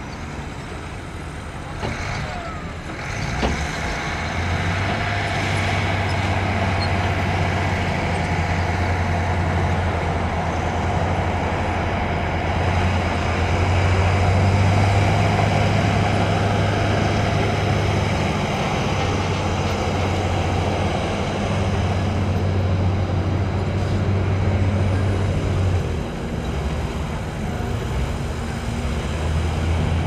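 Diesel engine of heavy earthmoving equipment running steadily with a deep, even hum, growing louder about four seconds in.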